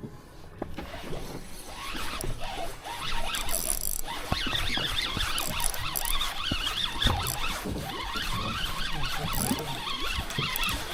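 Fishing reel being cranked to bring a fish up, a fast scratchy whirr that builds about two seconds in and keeps going, over the low rumble of the boat.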